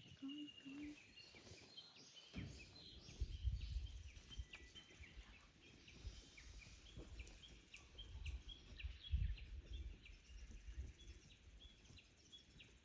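Small birds chirping over and over, short high notes throughout, with uneven low rumbles from about two seconds in.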